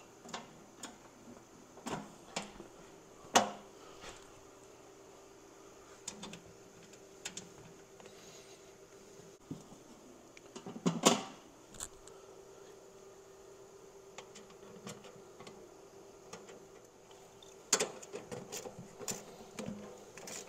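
Scattered clicks and knocks from a tractor seat and its metal bracket being handled and fitted against the steel seat pan, with a louder knock about three seconds in, another about eleven seconds in, and a run of small clicks near the end, over a faint steady hum.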